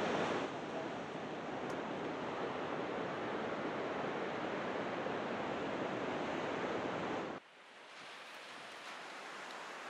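Steady rush of surf breaking along a long sandy beach, mixed with wind. About seven seconds in it cuts off suddenly to a quieter, thinner rush.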